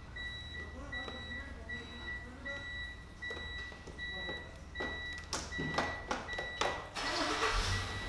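A delivery truck's reversing alarm beeping steadily, about one beep every three-quarters of a second, stopping about seven seconds in as a low engine rumble rises. A few sharp knocks come shortly before the beeping stops.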